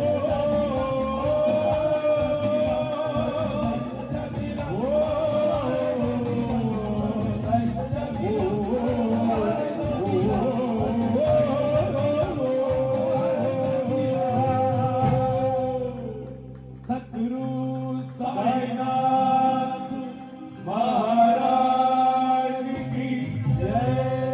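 A Marathi devotional bhajan: male voice singing with melismatic, bending lines over a steady high metallic beat of about two to three strokes a second. The beat stops about fifteen seconds in, leaving long held sung notes with short breaks.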